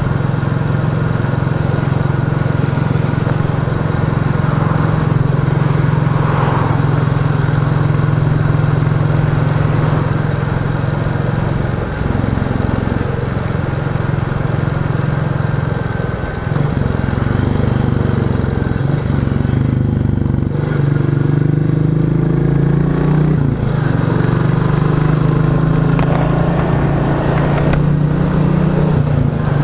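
Royal Enfield Classic 350 single-cylinder engine running through a Hitchcock's de-cat exhaust pipe while the bike is ridden on the road. The engine note shifts pitch a few times as the revs change, with a brief dip about halfway through.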